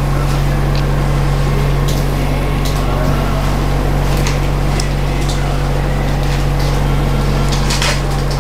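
Steady hum of operating-theatre equipment, with a few light clicks scattered through it.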